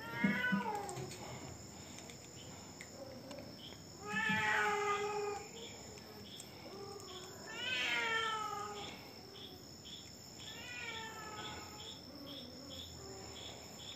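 A cat meowing four times, each meow about a second long and falling in pitch, the loudest ones about 4 s and 8 s in.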